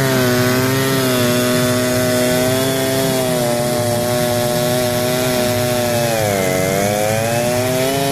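Two-stroke chainsaw running at high revs while cutting through a fire-burnt log. Its pitch sags briefly under load about six and a half seconds in, then climbs back.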